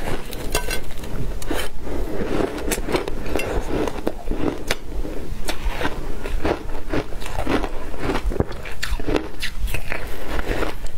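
Biting and chewing a slab of frozen shaved ice: a dense, irregular run of sharp crunches and crackles as the ice breaks between the teeth, with fresh bites at the start and near the end.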